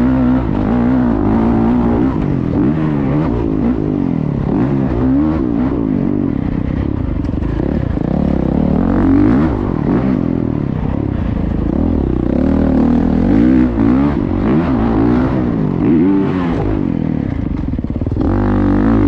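Pit bike engine revving under changing throttle, its pitch rising and falling again and again.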